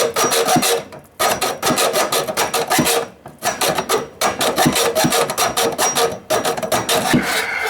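Rapid rasping strokes of a hand tool worked against copper pipe, in runs broken by short pauses about a second in, about three seconds in and again near six seconds.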